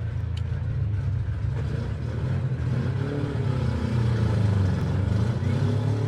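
Demolition-derby cars' engines running and revving together, with pitch rising and falling about halfway through.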